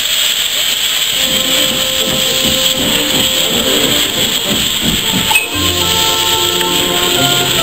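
Small industrial steam locomotive pulling away, steam hissing loudly and steadily. About five and a half seconds in, music with held notes comes in over the hiss.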